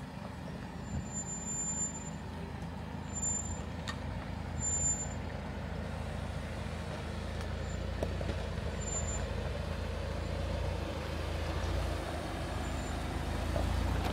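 Jeep Wrangler's engine running at a low, steady crawl-speed idle as it creeps down a rocky trail, growing gradually louder as it comes closer.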